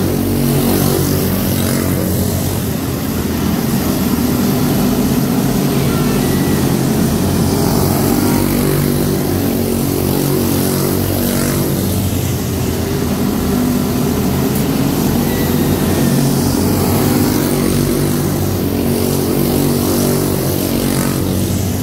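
A pack of quarter midget race cars with single-cylinder Briggs & Stratton Animal engines racing on a dirt oval. The engines run steadily and overlap, their pitch rising and falling a little as the cars go through the turns.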